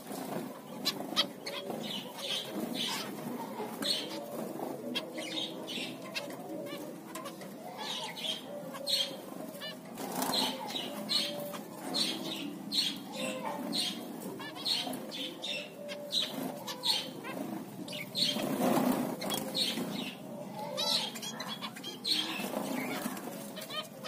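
Zebra finches, white ones among them, calling with many short, high, repeated beeping calls, mixed with the flutter of wings as the birds flit about. The calling and fluttering swell briefly about three-quarters of the way through.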